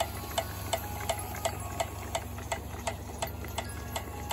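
Small Worthington-type steam pump running, giving a steady click about three times a second as it feeds water to a model boiler, over a low steady hum.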